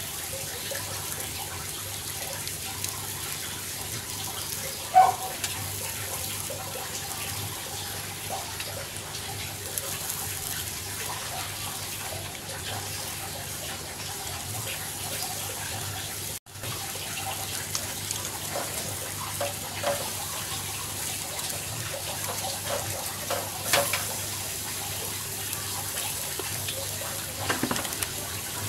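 Turkey breast sizzling on a grill over hot charcoal: a steady hiss, with a few faint clicks of metal tongs handling the meat.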